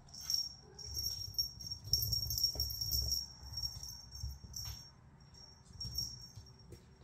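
A ball rolling and rattling around the plastic tracks of a tiered ball-track cat toy as kittens bat at it, with a high jingling over the rolling. It eases off about five seconds in and picks up again briefly near the end.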